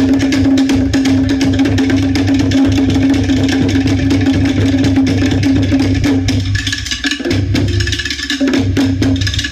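Tahitian drumming: a fast, continuous roll of wooden slit drums (toʻere) over a deep bass drum. About two-thirds of the way through, the rhythm breaks into short stop-start phrases with brief gaps.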